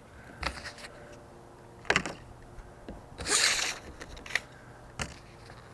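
Handling noises: a few separate sharp clicks and knocks, with a short rustle about three seconds in.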